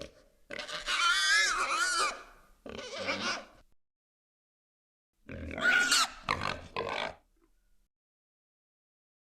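Gamorrean guard creature vocal sound effects: a long call with a wavering pitch about half a second in, then a shorter one. After a pause of a second and a half, a second cluster of short calls comes at about five to seven seconds in.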